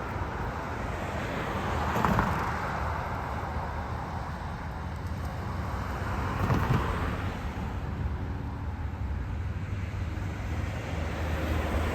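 Steady road traffic noise, with passing cars swelling louder about two seconds in and again around six and a half seconds.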